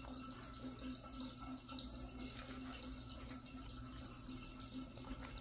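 Quiet room tone with a faint steady hum.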